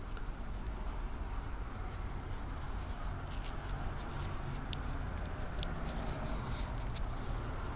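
Nylon webbing rustling and scraping as it is pulled through the fingers while a water knot is tied, with scattered small clicks and scratches over a steady low rumble.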